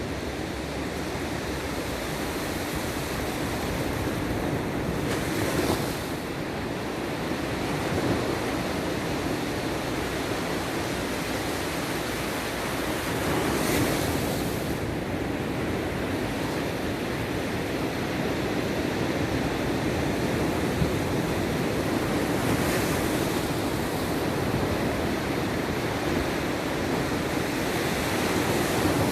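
Sea surf: a steady wash of waves with several louder breakers rolling in every few seconds, the strongest about fourteen seconds in.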